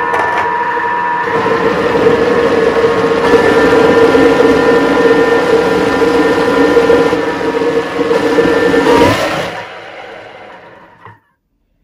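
Electric food processor motor running steadily with a whine, mixing raw minced meat with spices and tomato paste into lahmacun filling. Its pitch shifts slightly twice early on, then it switches off about nine and a half seconds in and spins down.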